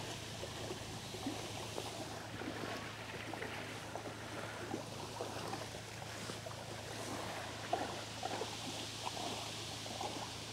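Steady watery ambience: a soft hiss full of faint irregular crackles, over a constant low hum.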